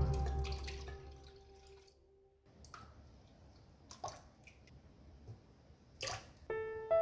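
Background music fades out in the first second, leaving near silence with a few faint, short clicks or taps spread over several seconds; soft keyboard music starts again near the end.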